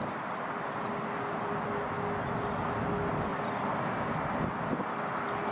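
Boeing 737's twin jet engines at takeoff power as the airliner lifts off and climbs out, a steady, even noise with a held hum running through it.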